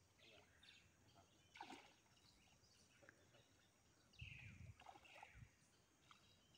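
Near silence: faint riverside ambience with a few faint bird chirps and a soft knock.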